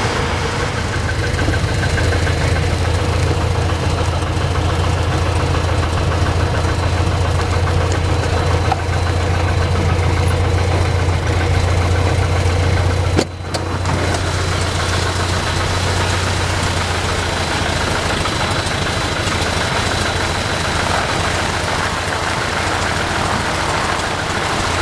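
Lycoming O-320 four-cylinder engine of a Zenair CH-300 running steadily at low taxi power, heard from inside the cockpit, its two-blade metal propeller turning. A sharp click about thirteen seconds in, with a brief dip in the sound.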